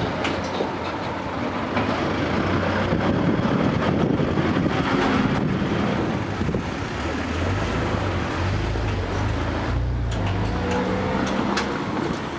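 KiHa 11 diesel railcar going by on the rails, with wheel-on-rail noise and a scattering of faint clicks. A low engine rumble swells about two-thirds of the way through.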